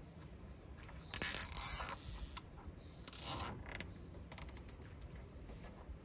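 Nylon cable ties being pulled tight, the ratcheting zip of the tie's teeth through its head: a long pull about a second in, a shorter one around three seconds, then a few quick clicks.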